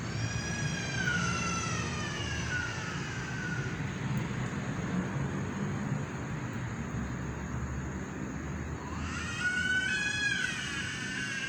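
Two long, drawn-out wailing calls over a steady low rumble. The first starts as the sound begins and slowly falls in pitch over about four seconds. The second rises about nine seconds in and is held until the end.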